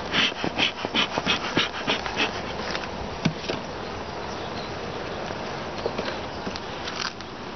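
Honeybee colony in an opened long hive, a steady buzzing hum of many bees. In the first two seconds or so a quick run of short clicks sounds over it.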